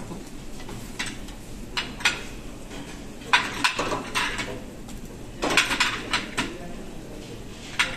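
Kitchenware clinking and knocking against a non-stick frying pan as vegetables are added to white sauce and stirred with a wooden spatula. The knocks come in short scattered clusters: one about a second in, one mid-way, a busier run a little past halfway, and a last one near the end.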